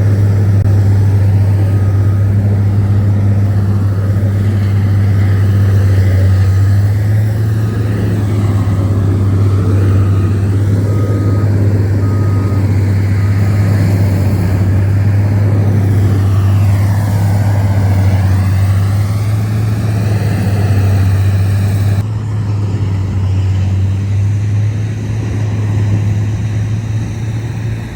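Diesel semi-truck engine idling with a steady low hum. A faint high beep repeats several times in the first half.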